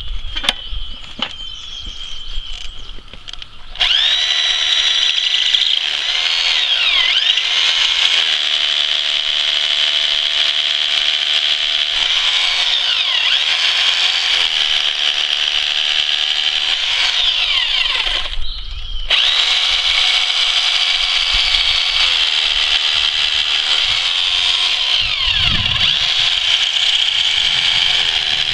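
Bosch Bulldog rotary hammer drilling into limestone, honeycombing the stone to break out chunks. It starts about four seconds in and runs steadily, its motor pitch shifting as it bears into the stone. It stops briefly about two-thirds of the way through, then starts again.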